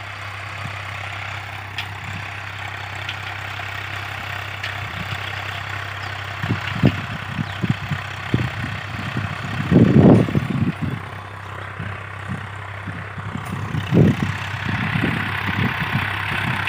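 Tractor engine running steadily with a constant low hum. From about six seconds in it is joined by irregular low thumps, the loudest about ten seconds in.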